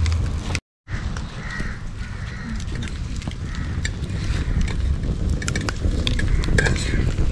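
Open wood fire burning under a large pan: a steady low rumble of flames with many sharp crackles and pops from the burning wood. The sound drops out completely for a moment just under a second in.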